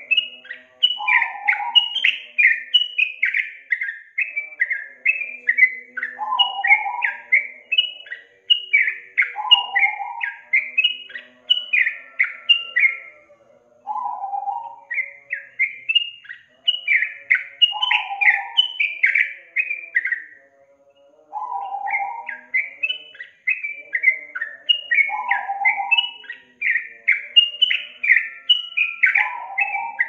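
Yellow-vented bulbul (trucukan) singing: fast runs of bright chirping notes, each run opened by a lower note, repeating phrase after phrase with two short breaks, about halfway and two-thirds of the way through.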